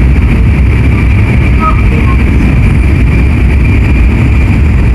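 Steady rumble of an N700S Shinkansen train running, with a constant high hum over the low noise.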